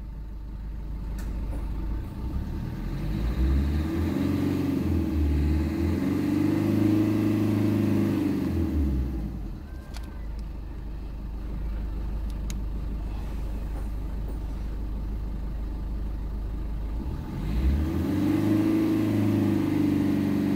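Diesel vehicle engine revved up from idle and held high, then released back to a steady idle, with a second rev starting near the end. These are free-acceleration flush revs to about 3,000 rpm for a diesel smoke-opacity test.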